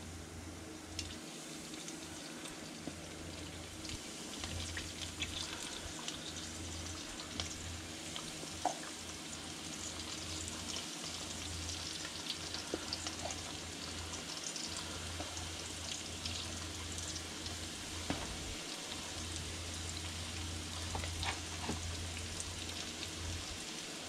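Breaded crappie fillets shallow-frying in hot vegetable oil in a wok: a steady sizzle with scattered pops and crackles, growing a little louder after a few seconds as more fillets go into the oil.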